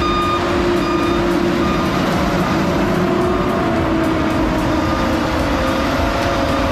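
Heavy diesel truck or machine engine running steadily under load, with a backup alarm beeping at an even pace, about once a second.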